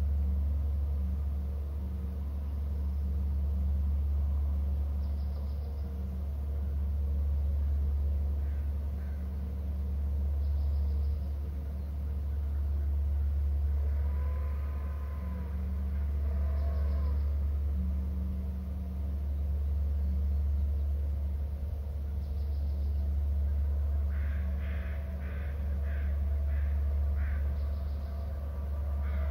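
A steady low rumble that swells and fades about every four seconds, with a bird giving a run of short, sharp calls, about two a second, near the end.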